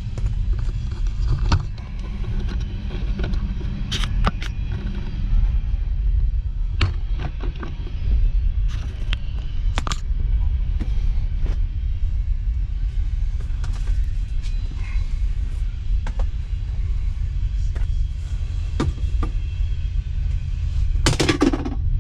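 Scattered light clicks and knocks of trim parts and wiring being handled under a car's dashboard, over a steady low rumble, with a louder knock near the end.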